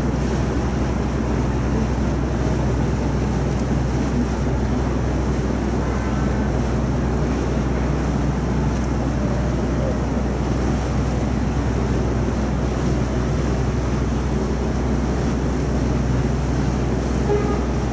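Tour boat's engine running with a steady low drone under an even rush of water and wind.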